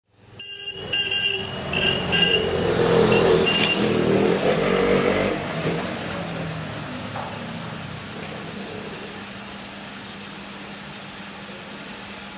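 Darjeeling Himalayan Railway steam locomotive standing and blowing off steam: a loud rushing hiss with a few short high whistle toots in the first four seconds. After about five seconds it eases to a quieter steady hiss with a low hum.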